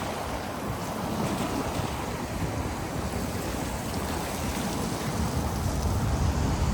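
Wind rumbling steadily on the microphone over faint outdoor ambience.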